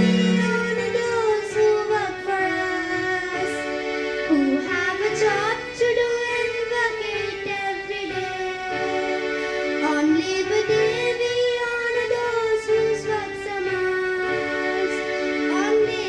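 A song: a high singing voice carries a melody with sliding notes over steady instrumental accompaniment.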